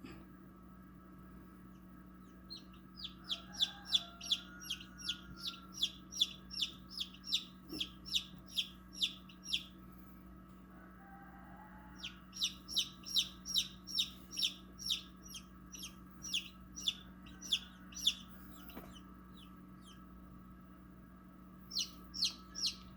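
Newly hatched chicks peeping: runs of short, high, falling peeps, about two a second, over a steady low hum.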